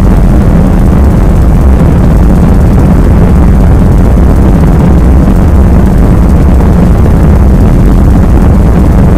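Harsh noise music: a loud, dense wall of distorted noise, unchanging in texture and heaviest in the deep low end.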